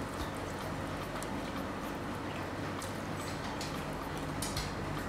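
A steady low hum under faint, scattered clicks and rustles of fingers picking at fish on a banana leaf.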